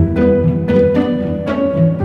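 Instrumental background music with a steady pulse of notes, about three a second.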